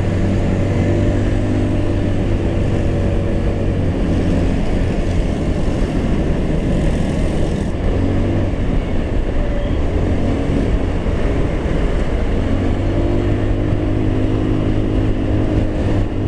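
Motorstar Easyride 150N scooter's 150cc engine running steadily under load on an uphill climb, mixed with wind rushing over the camera microphone. The engine does not sound strained; in the rider's words, you won't hear it sounding angry.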